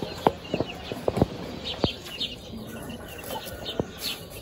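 Australorp chicks peeping, many short high chirps. Several sharp taps or clicks are scattered among them.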